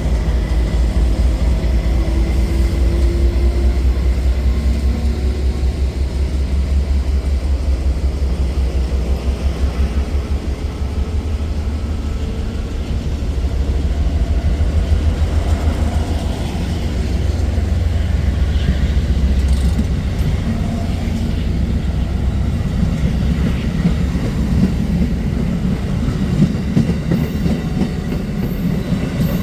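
Amtrak passenger train rolling past at track speed: a steady, loud low rumble of wheels on rail that eases about twenty seconds in.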